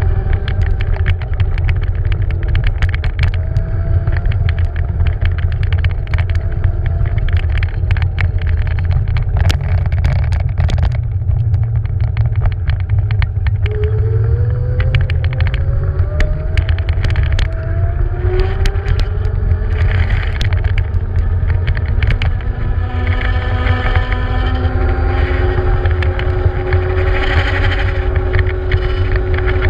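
Beaster Scooter BS11 electric scooter riding, heard from its mounted action camera: a steady low rumble with the scooter rattling and clicking over paving-stone joints, and the electric motor's whine rising in pitch as it picks up speed. Near the end, on smoother asphalt, the clicks thin out and the motor whine holds steady.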